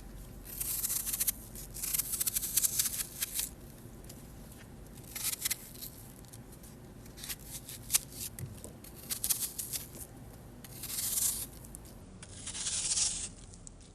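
Irregular bursts of rustling and scraping, like hands rubbing or handling something, with fine clicks in between.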